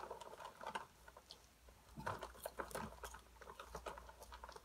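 Someone chewing crunchy honey popcorn: a quiet, irregular run of small crunches and clicks.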